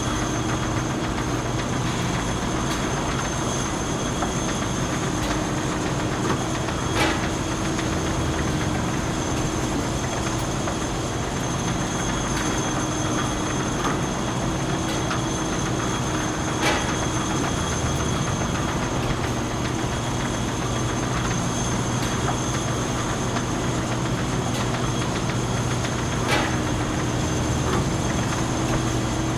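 Factory machinery running steadily with a constant hum, and a sharp click three times, about every nine to ten seconds.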